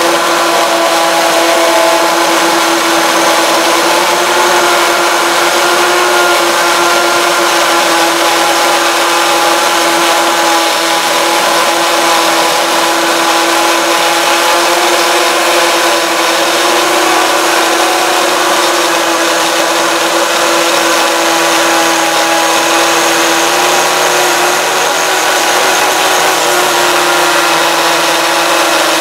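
Cordless 20V drills boring into a cement block with a 3/8-inch masonry bit. The motors run at a steady whine under continuous load, with grinding noise from the bit in the block.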